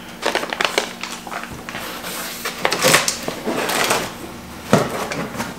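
Rummaging in a cardboard shipping box: irregular rustling, scraping and knocks of cardboard and packaged items being handled, with a couple of louder knocks.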